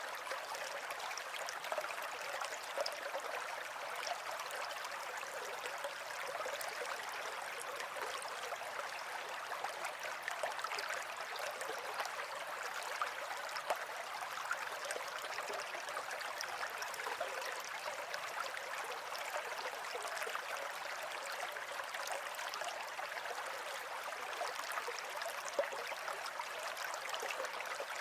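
Running water flowing steadily, a continuous babble of small splashes with little deep rumble.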